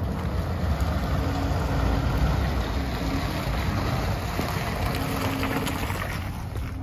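Steady rumbling wind noise on the microphone, with a faint low hum that comes and goes.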